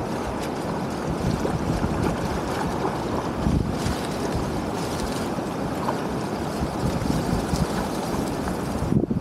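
Shallow muddy water rushing along a canal, with wind buffeting the microphone.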